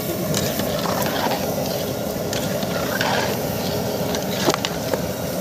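Bread cubes deep-frying in hot oil in a large aluminium pot: steady sizzling with scattered sharp crackles and pops.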